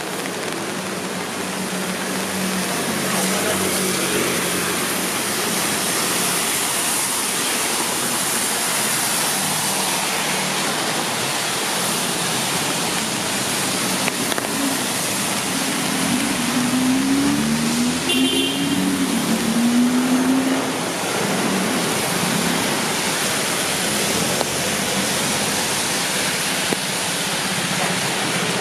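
Steady hiss of rain mixed with traffic on wet city streets. In the middle, a passing vehicle's engine note rises and falls for several seconds, and a short high beep sounds during it.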